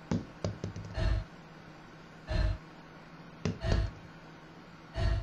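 Dull thumps repeating evenly, about one every second and a third, with a few light clicks in between.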